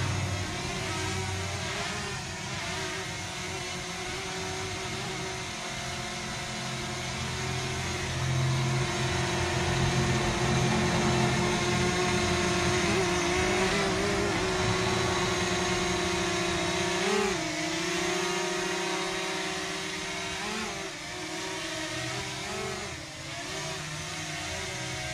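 DJI Mini 2 drone flying on its stock propellers, its four small motors and props giving a steady high hum. The hum gets louder for several seconds as the drone comes close, and its pitch wavers briefly a few times as it manoeuvres.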